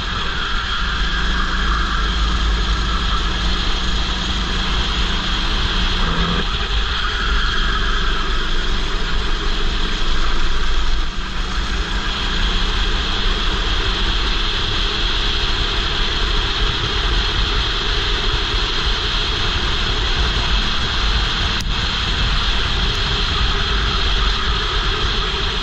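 Racing kart engine running at speed, its note rising and falling as it accelerates and lifts, under heavy wind rush on a helmet-mounted camera.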